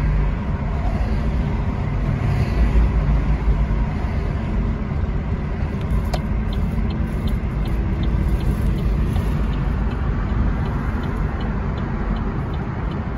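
Road noise and engine rumble inside a moving car's cabin. About halfway through, the turn signal starts clicking, about two ticks a second, as the car moves toward a turn.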